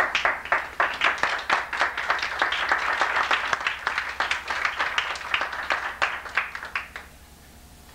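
A roomful of people applauding: dense, uneven hand claps that thin out and stop near the end.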